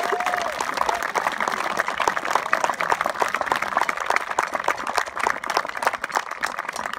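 Audience applauding with many hands clapping, dying down near the end.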